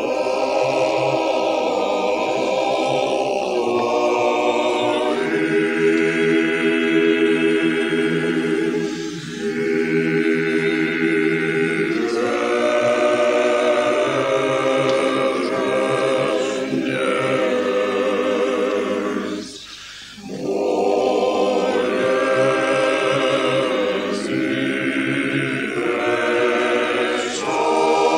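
Russian Orthodox church choir singing a cappella in long phrases of held chords, with a short break about twenty seconds in.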